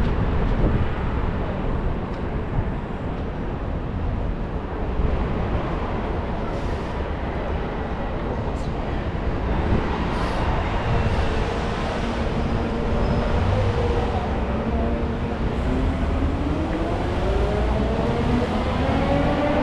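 Light rail train running, with a steady rumble. Near the end a whine of several tones rises in pitch, the electric motors picking up speed.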